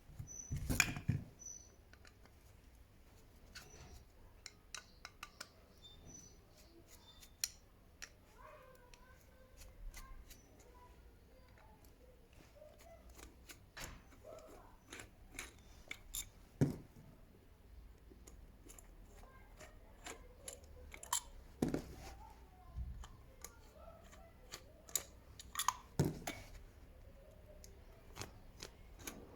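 Scattered small clicks and knocks at irregular intervals, a few sharper than the rest, typical of hand tools and small metal parts being handled during carburettor work.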